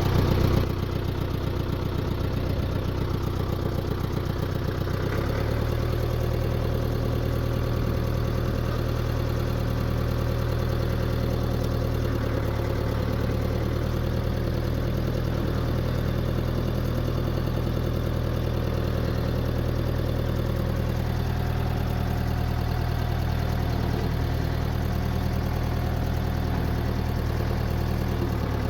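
A heavy farm machine's diesel engine running steadily at a low, even speed, with a slight change in its note about five seconds in.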